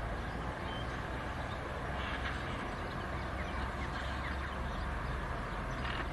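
Steady outdoor rumble, heaviest in the low end, with short bird chirps now and then above it.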